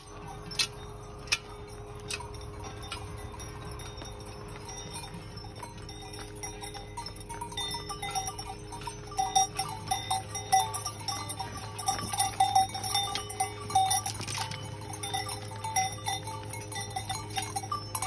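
Cowbells clanking irregularly as cows walk past. The clanking grows louder and busier about halfway through.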